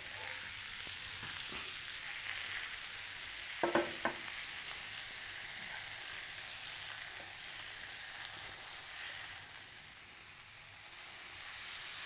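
Veal olives searing in a skillet, a steady sizzle of browning meat. A brief louder sound comes about four seconds in, and the sizzle eases for a moment near ten seconds in.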